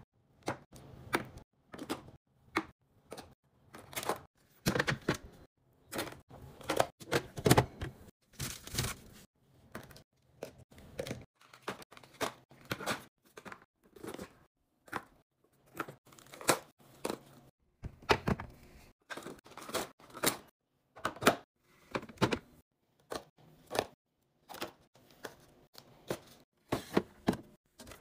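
A string of irregular clicks, taps and knocks with some crinkling: plastic containers, bottles and food packaging being handled and set down while a fridge is restocked.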